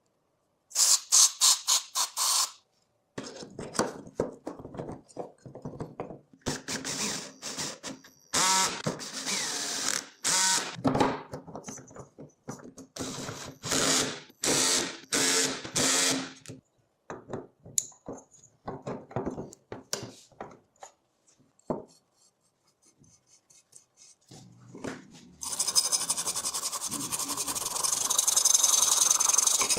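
Hand tools working on a small dirt-bike engine: a quick run of sharp clicks, then irregular clattering and scraping of metal parts, and near the end a steady loud hiss sets in.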